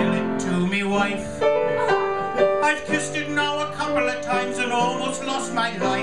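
A man singing a comic song into a microphone over steady instrumental accompaniment.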